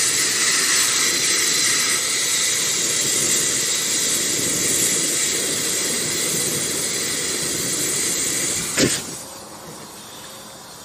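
Steady hiss of aerosol fuel being sprayed into a homemade jet engine built from a vacuum cleaner impeller and tin cans, its shaft jammed. About nine seconds in, a sharp pop as the fuel ignites, and the hiss stops.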